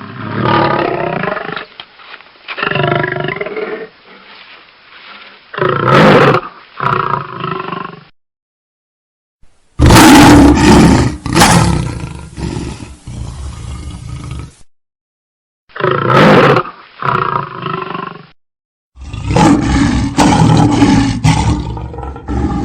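African lions roaring, several separate recordings one after another: each a series of deep roars tapering into shorter grunting calls, with brief gaps of silence between the recordings.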